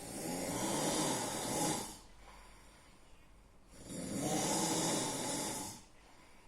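A sleeping person snoring loudly: two long snores of about two seconds each, one at the start and another about four seconds in, with quiet breathing between them.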